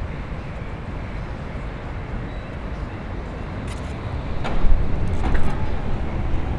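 City street ambience with road traffic; a passing vehicle's low rumble grows louder about four and a half seconds in, with a few sharp clicks around it.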